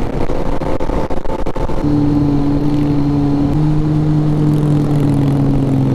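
Motorcycle engine running at steady cruising revs, with wind and road rush. The note settles in about two seconds in, lifts slightly about halfway through, then slowly eases off.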